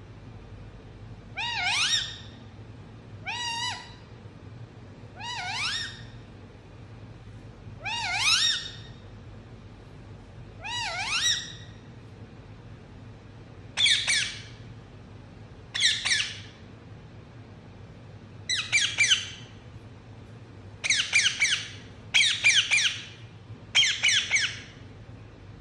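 Indian ringneck parakeet calling in about eleven loud squawks, each under a second and spaced a second or two apart. The first five sweep steeply up in pitch; the later ones are shorter, with no sweep, and the last three come close together.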